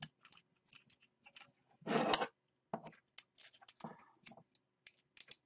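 Small metal clicks, ticks and scrapes of a screwdriver and pliers working on a hard drive's head actuator arm assembly, with one louder scrape lasting about half a second about two seconds in.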